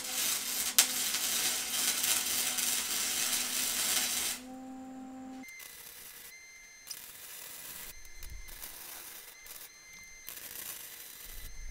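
MIG welder tack-welding a steel part: a loud, steady crackle of the arc for about four seconds. After a brief low hum comes a second, quieter run of crackling broken by short pauses.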